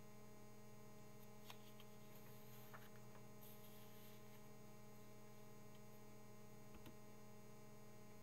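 Near silence: a steady low electrical mains hum on the recording, with a few faint clicks.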